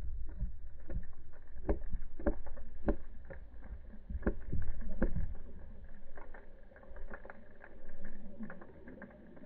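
Muffled underwater rumble and water movement heard through a waterproof camera housing, with irregular clicks and knocks and surges of sound, the strongest about halfway through, as the swell jostles the camera.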